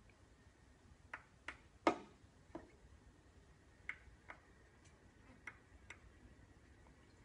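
Sharp clicks and taps of hard objects being handled in and against a clear acrylic tank, about ten in all at uneven spacing, the loudest just under two seconds in.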